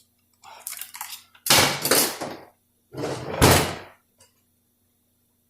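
Metal automatic-transmission parts being handled on a workbench: light clatter, then two loud clunking, scraping sounds, each about a second long, about a second and a half and three seconds in.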